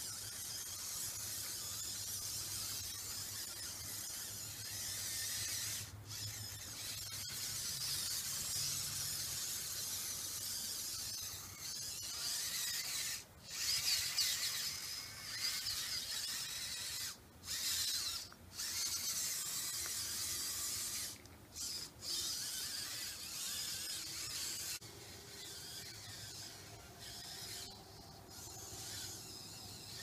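Electric drive motors and gearing of a radio-controlled skid steer whining as it drives over dirt, cutting out briefly about half a dozen times as it stops and starts. The whine is quieter for the last few seconds.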